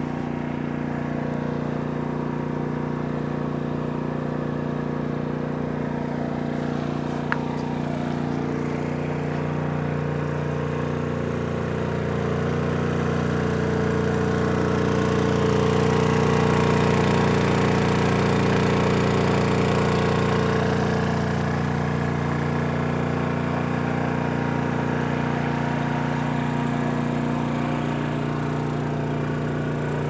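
A steady engine-like drone of a motor running, with several held tones, growing louder through the middle and easing off again.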